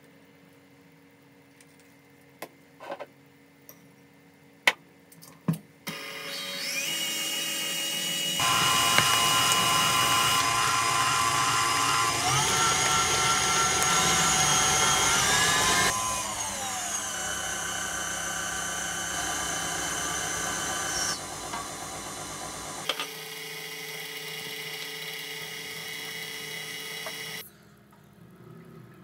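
Electric stand mixer whisking eggs and sugar in a steel bowl. After a few light knocks, the motor starts about six seconds in, steps up to a higher speed, then slows in stages with a falling whine and switches off near the end.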